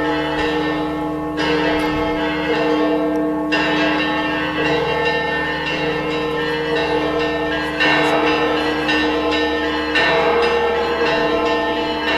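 Several church bells ringing together, struck again and again, their tones ringing on and overlapping.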